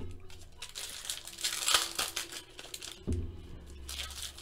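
Foil baseball-card pack wrappers crinkling and rustling in the hands as packs are opened. The rustle comes in uneven bursts and is loudest about a second and a half in.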